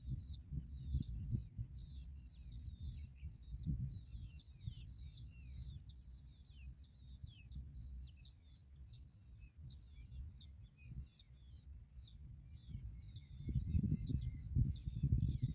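Small birds chirping, a dense run of quick high chirps and short calls, over a low rumbling noise that grows louder near the end.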